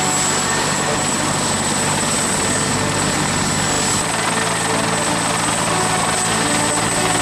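Helicopter running close by: a loud, steady rotor and engine noise with a low drone that shifts about four seconds in.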